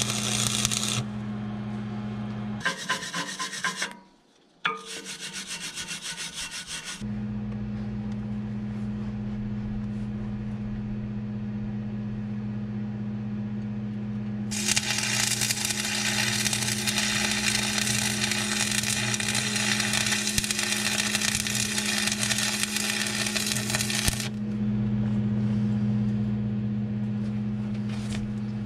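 Stick-welding arc with 7014 electrodes crackling and sizzling: a few short runs in the first seven seconds, then one sustained bead of about ten seconds in the middle. A steady low electrical hum runs underneath between the welds.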